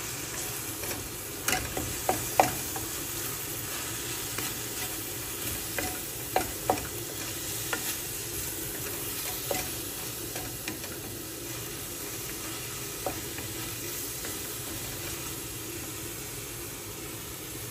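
Onion-tomato masala with spice powders sizzling in a kadai as a wooden spatula stirs it, with scrapes and knocks of the spatula against the pan. The knocks come often in the first half and thin out later.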